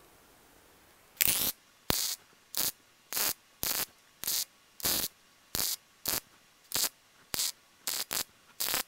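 MIG welder laying about a dozen quick tack welds, each a short crackling burst of the arc, a little over a second in and then roughly twice a second. These are the small 'dots' or 'islands' set along a quarter-inch gap in a steel corner seam so that the seam can be solid welded without melting back.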